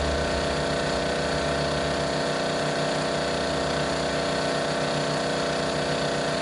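Pressure washer running steadily, its engine and pump giving an even drone with a fast pulse, over the hiss of the water jet from the wand.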